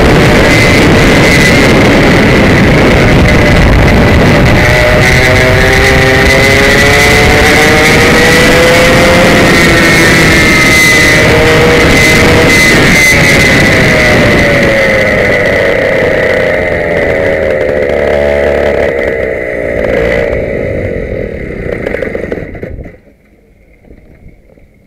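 Komet K77 two-stroke kart engine running hard, heard from the driver's helmet camera, its pitch rising and falling with the revs. In the last few seconds it fades and turns uneven, then cuts off suddenly near the end.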